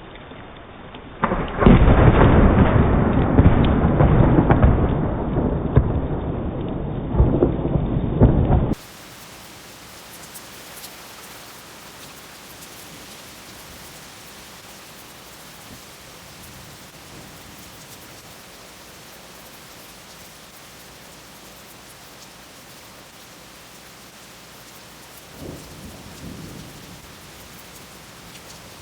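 Thunder: a loud, rolling thunderclap starts about a second in and rumbles for some seven seconds before cutting off suddenly. Steady rain hiss follows, with a fainter rumble of distant thunder near the end.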